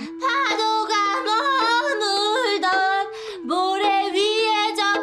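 A high voice singing short, sliding phrases over a steady held note, with brief breaks a little before and after the middle.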